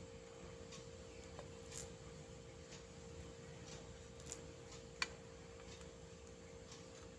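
Quiet room with a steady hum and a few soft clicks; one sharper click about five seconds in is the loudest sound.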